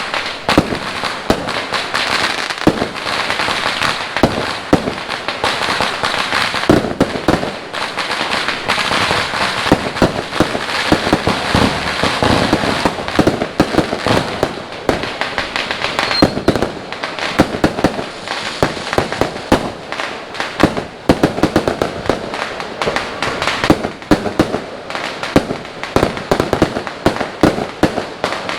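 Fireworks and firecrackers going off continuously: a dense crackle with many sharp bangs, over and under each other, all the way through.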